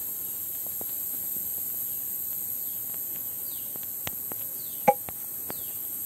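Forest ambience: a steady high-pitched drone of insects, with a few short falling bird chirps and scattered small clicks and snaps, one louder short sound just before the end.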